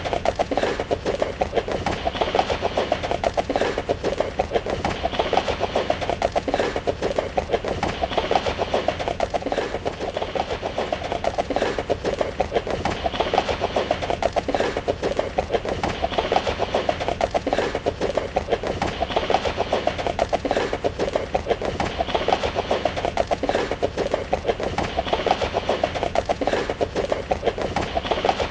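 A horse running, its hooves drumming in a rapid, unbroken run of hoofbeats, with a pattern repeating every few seconds.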